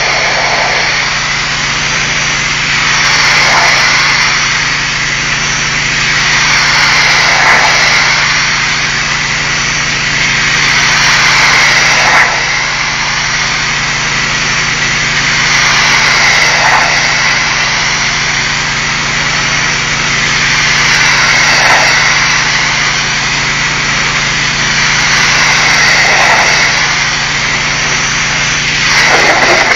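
Pressure-washer jet blasting against a brick wall: a loud, steady hiss that swells and fades every four or five seconds as the spray sweeps back and forth, over a steady engine hum.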